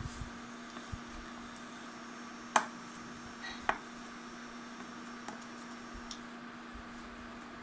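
Wooden spoon stirring melting butter in a stainless steel frying pan, with faint scrapes and ticks and two sharp knocks of the spoon against the pan, about a third of the way in and again a second later, over a steady low hum.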